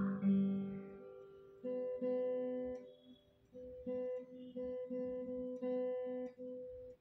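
Background music: an acoustic guitar playing plucked notes and chords in a slow, even pattern.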